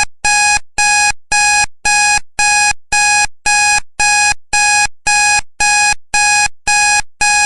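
Countdown timer's electronic alarm beeping: identical short, steady high-pitched beeps repeating evenly, just under two a second, signalling that the four-minute countdown has run out.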